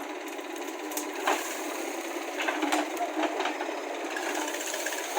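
JCB 3DX backhoe loader at work: its engine runs steadily, with a few sharp metallic clanks from the digging gear about a second in and again near the three-second mark.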